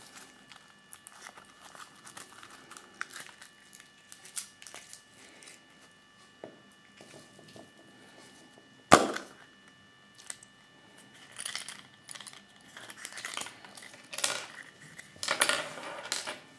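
The foil wrapper of a Kinder Surprise egg crinkles and rustles as it is peeled. About nine seconds in, the plastic toy capsule is popped open with one sharp, loud snap. Several bursts of crinkling wrapper follow as the toy inside is unwrapped.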